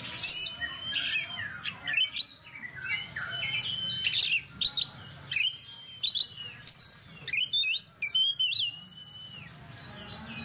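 Oriental magpie-robin (kacer) singing loudly in full contest form. Sharp, high sweeping notes, the 'tembakan' shots that kacer fanciers prize, alternate with long level whistles, each held about a second and repeated several times.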